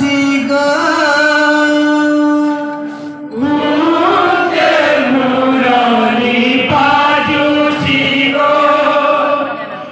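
Men's voices singing a Sambalpuri kirtan, a devotional song in chant style. A long held note lasts about three seconds, then after a short break the voices carry on in a rising and falling melodic line.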